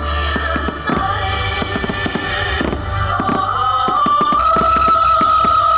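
Aerial fireworks bursting in quick, irregular succession, a dense run of bangs and crackles, over loud music with held notes playing at the same time.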